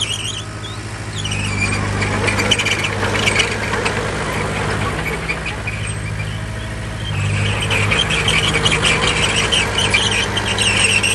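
Crawler bulldozer's diesel engine running steadily, with its steel tracks squealing and clanking as it moves: briefly at the start, then again from about seven seconds in.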